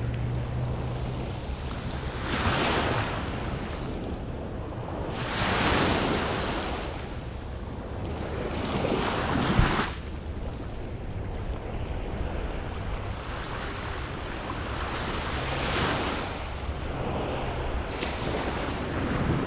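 Small waves breaking and washing up a sandy beach, swelling and fading in surges every few seconds, over a steady low rumble of wind on the microphone.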